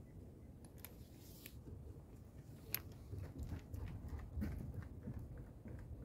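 Light, irregular taps and ticks of a man and a dog walking across a wooden deck, with one sharp click a little under three seconds in, over a steady low rumble.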